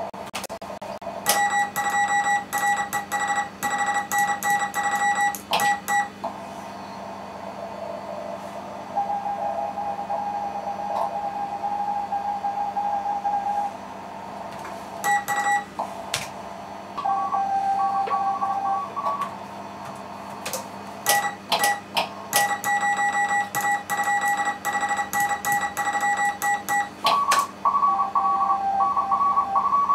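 Morse code (CW) tones from an amateur radio station in a contest: loud runs of keyed tone broken by sharp clicks, about 1 to 6 seconds in and again from about 20 to 27 seconds. Between them come quieter Morse signals, some a little higher in pitch, over a steady hum and band hiss.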